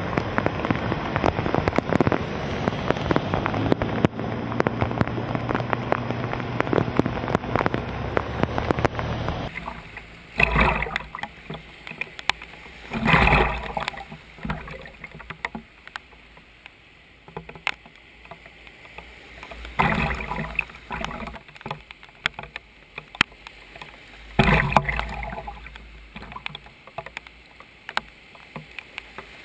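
Cars driving through flood water over a road, their tyres throwing up sprays and wakes of water. For the first ten seconds or so there is a dense, steady wash of splashing water. After that it quietens, broken by four separate loud splashing passes as vehicles plough through.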